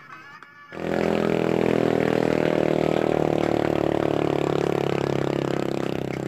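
A motor vehicle's engine comes in suddenly and loudly less than a second in, running at a steady pitch with a rapid even pulse, then slowly fades toward the end.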